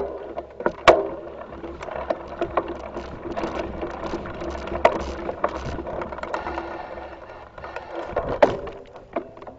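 Mountain bike rolling over dirt singletrack: knobby tyres on the trail and the bike rattling, with frequent small clicks and a few louder knocks over bumps.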